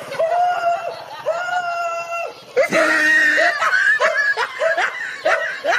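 High-pitched shrieking cries: two long held cries, then from about halfway a fast run of short cries, each rising in pitch.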